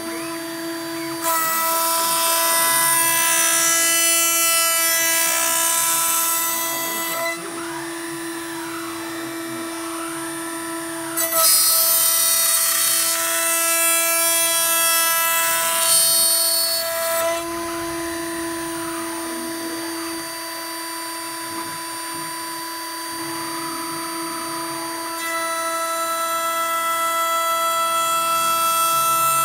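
Stepcraft 840 CNC router running, its spindle motor whining steadily while the cutter mills a bassoon reed blank. Loud cutting hiss comes in two long stretches and swells again near the end, and between them a tone sweeps up and down in pitch a few times as the machine moves.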